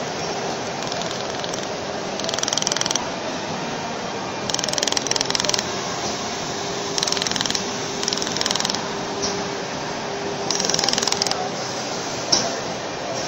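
400 W laser welder spot-welding an aluminium channel-letter seam: about six short bursts of rapid ticking, each half a second to a second long, as the laser fires pulse after pulse. A steady machine hum with a faint held tone runs underneath.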